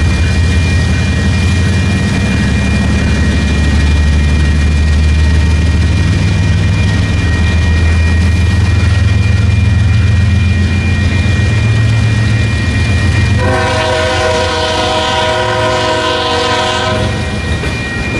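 Freight train cars rolling through a grade crossing: a steady low rumble of steel wheels on rail, with a steady high ringing tone over it. About thirteen seconds in, a train's multi-note air horn sounds for about three and a half seconds.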